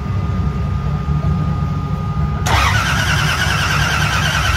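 Starter motor cranking the engine of a Chevy II Nova drag car, starting suddenly about halfway through with a fast, even rhythm, over a low engine rumble. This is a cold start attempt; the engine has not yet caught.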